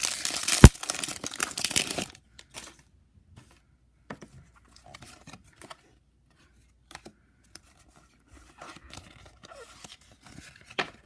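Foil wrapper of a Pokémon booster pack being torn open and crinkled for about two seconds, with one sharp snap under a second in. After that, only faint, scattered rustles and ticks.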